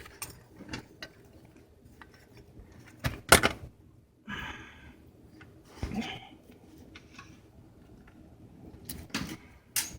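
Scattered clicks and knocks of a speed sensor and its bracket being worked and pushed into a transmission housing, with a short scraping rustle a little past the middle.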